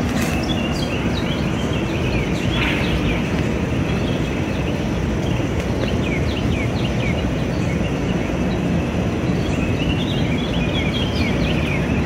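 Scattered short bird chirps and calls over a steady low rumble of distant traffic. The chirps cluster in the first few seconds and again near the end.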